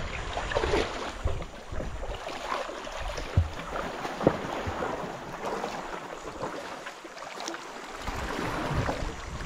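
Sea water splashing and lapping at the shore, with wind buffeting the microphone at the start and end and two sharp knocks near the middle.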